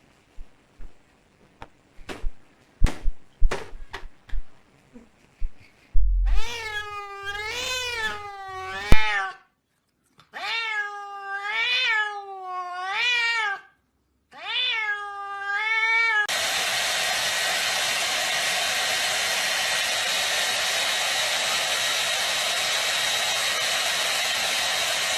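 A few scattered knocks and taps, then a cat yowling in three long drawn-out calls whose pitch wobbles up and down. These are followed by a loud, steady rushing noise that lasts about ten seconds.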